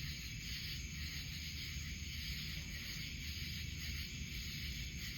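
Steady outdoor background with a low rumble and an even high hiss, and no distinct events.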